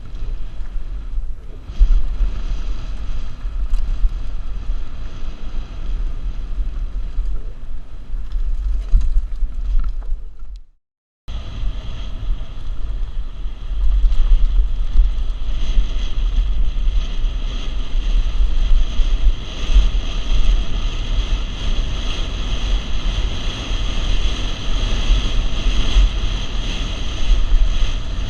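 Wind buffeting a helmet-mounted GoPro's microphone during a fast mountain-bike descent, with the steady rumble and rattle of the bike riding over the trail. The sound cuts out for a moment about eleven seconds in, then returns with more hiss.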